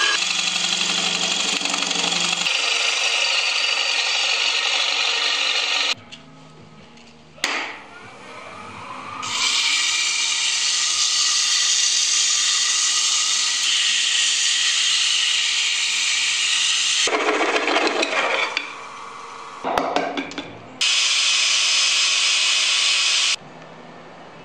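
Wood lathe spinning a laminated walnut-and-skateboard vase blank while a turning gouge cuts it, then the spinning piece being sanded by hand. The cutting and sanding come in three long, loud, hissing stretches, broken by short quieter gaps.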